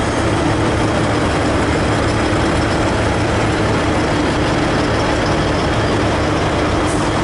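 V/Line VLocity diesel multiple unit's underfloor diesel engines running as the train moves slowly along the platform: a steady drone with a held hum.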